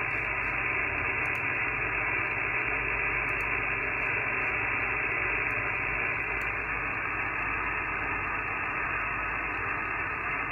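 Steady hiss of HF band noise from an amateur radio receiver's speaker, cut off sharply above about 3 kHz by the receiver's passband, with no clear signal on a band the operator calls just trash.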